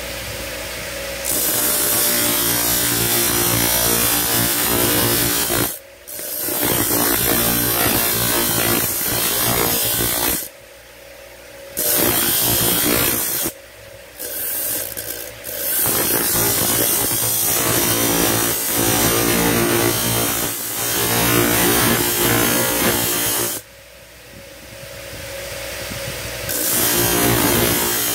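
Motor-driven grinding wheel running steadily while a steel gaff-blade blank is pressed against it, giving a loud grinding hiss as the rough blank is ground down toward a semi-finished blade. The grinding starts about a second in and breaks off four times, when the blade is lifted from the wheel, with the motor's hum still going.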